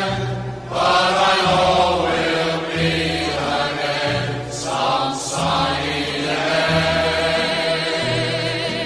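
Music: a choir singing long, held notes over an accompaniment.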